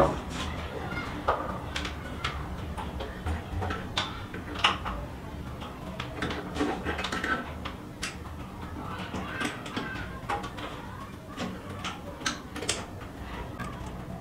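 Irregular metal clicks and knocks from a ceiling fan's down-rod and mounting hardware being hung on the ceiling hook and fitted by hand.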